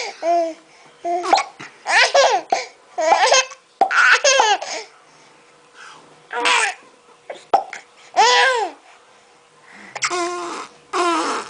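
A baby laughing in repeated short, high-pitched bursts of giggles, often falling in pitch, with brief hiccups between the laughs.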